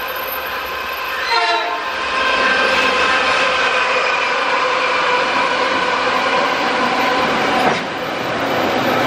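Freight train led by two GE Dash-9 diesel locomotives passing close by, engines running with a steady whine of several tones. It gets louder about two seconds in as the locomotives draw level, and dips shortly before the end as the locomotives give way to flat wagons rolling past on the rails.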